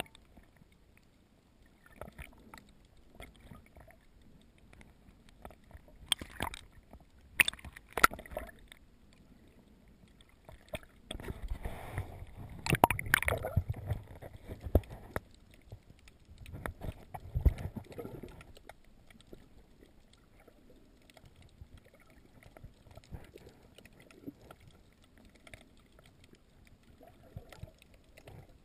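Muffled water noise picked up by a camera held underwater while snorkelling, with a few sharp clicks about six to eight seconds in, and two louder stretches of gurgling, sloshing noise around the middle. Otherwise faint.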